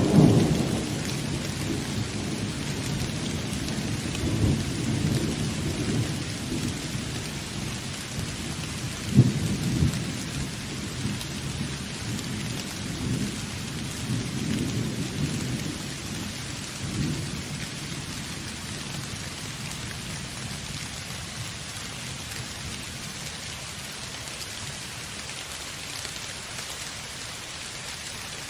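Steady heavy rain with rolling thunder. The thunder is loudest right at the start and again about nine seconds in, then rumbles away, leaving only the rain near the end.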